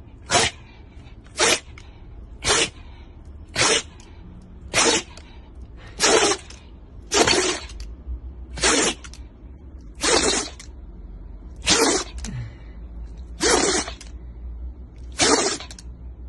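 A Shiba Inu sneezing over and over: a dozen short, sharp sneezes, one every second or so, spacing out slightly toward the end.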